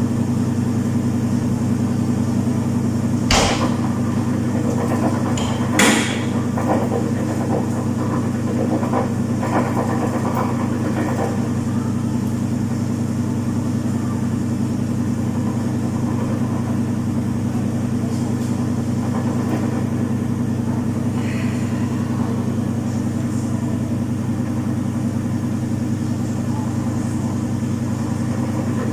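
Domus 8 kg washing machine running a full load with a steady hum, two sharp knocks about three and six seconds in.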